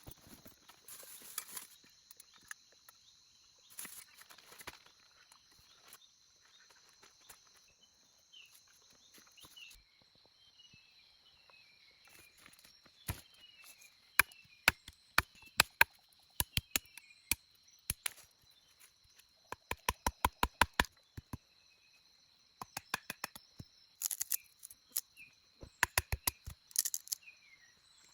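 Forest ambience: a steady high-pitched drone of insects with scattered bird chirps. In the second half come many sharp knocks, single and in quick runs of several.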